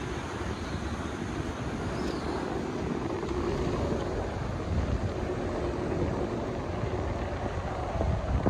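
Wind buffeting the microphone over a steady low rumble, with a faint hum underneath.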